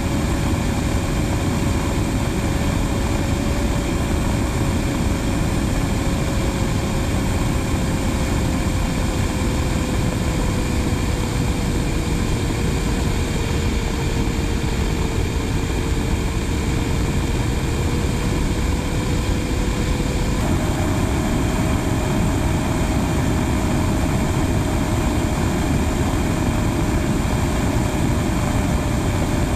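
Steady rush of airflow and jet engine noise from a camera mounted on the outside of a Blue Angels F/A-18 Hornet in formation flight, with a steady whine running through it that drifts slightly and steps up a little in pitch about twenty seconds in.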